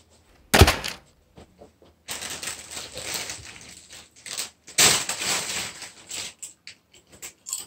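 A single heavy thump about half a second in, then a crisp packet crinkling and rustling as it is handled and passed between hands, with hands reaching into it for crisps.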